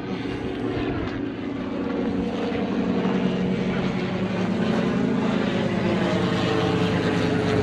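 Steady engine drone that slowly grows louder, with a slight rise and fall in pitch around the middle.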